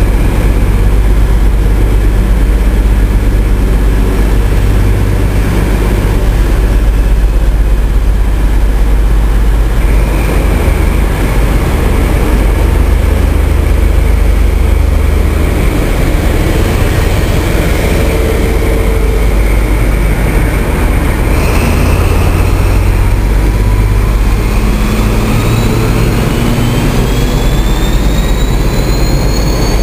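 High Speed Train power cars' Paxman Valenta diesel engines running loudly as the train moves along the platform. In the last several seconds a whine rises steadily in pitch as the engines work harder.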